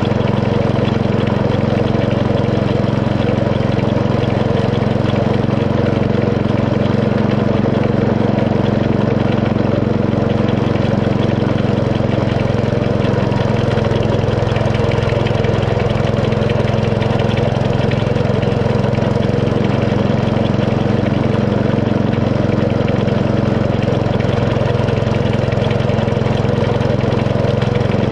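Small petrol engine of a miniature railway locomotive running steadily under way, an unbroken engine drone with no change in pitch.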